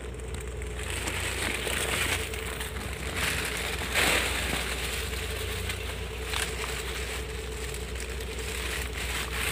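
Footsteps crunching through dry leaf litter and brushing past undergrowth on a steep forest trail, with a few louder scuffs in the middle.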